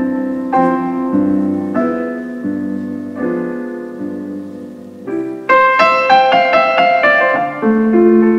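Piano music played back through a pair of Fostex FE108 Super 10 cm full-range speakers whose hardened cloth edges have been softened. Chords ring and fade, growing quieter for a moment about five seconds in, then a louder, fuller passage follows.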